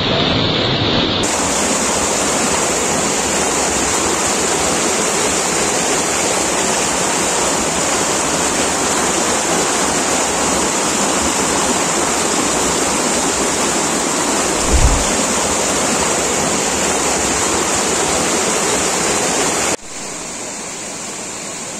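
Waterfall water rushing over rocks in a steady, loud, unbroken rush, with a brief low thump about fifteen seconds in; near the end the rush drops to a softer level.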